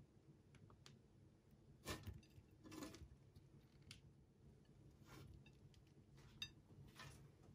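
Near silence: quiet room tone with a few faint clicks and soft knocks from objects being handled.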